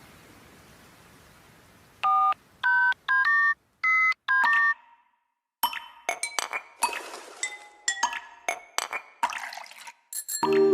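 Five short two-tone electronic beeps like phone keypad tones, about two seconds in, followed after a pause by a quick string of clicks and brief chiming ticks. Music starts near the end.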